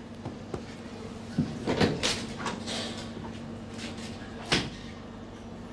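A few scattered light knocks and clicks, two close together about two seconds in and another about four and a half seconds in, over a steady low hum.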